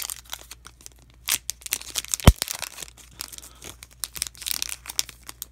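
Foil wrapper of a Pokémon trading-card booster pack crinkling and tearing as it is opened by hand, with one sharp knock about two seconds in.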